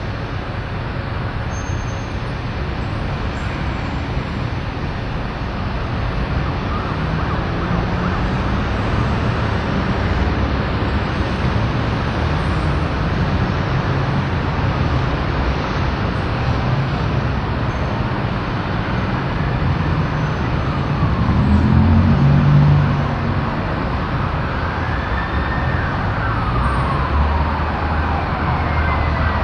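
An emergency-vehicle siren wailing, rising and falling in pitch over a few seconds at a time, faint at first and plainer in the second half. It sounds over a steady rumble of traffic around the rail yard, which swells briefly a little past the middle.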